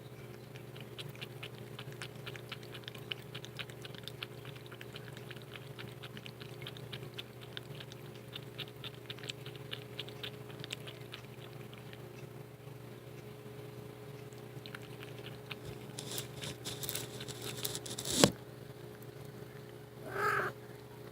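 A cat feeding at close range: a quick run of small wet mouth clicks, several a second. Near the end a clatter ends in one sharp knock, followed by a short call.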